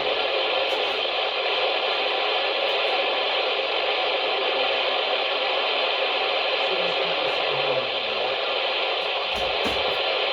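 Steady hiss of radio static from a weakly received broadcast, narrow-band like a receiver's audio output.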